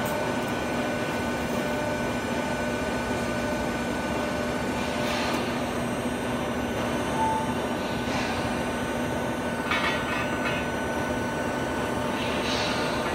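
Steady machine hum with several held tones, the running hydraulic drive of a Detsch W28K-89 pipe bending machine. A few brief sharper noises break in about a third of the way in, twice near the middle and once near the end.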